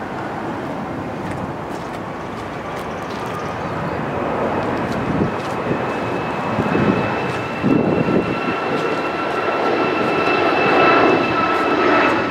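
Steady engine noise that grows slowly louder, with a high, even whine coming in a couple of seconds in and strengthening near the end, and a few gusts of wind on the microphone.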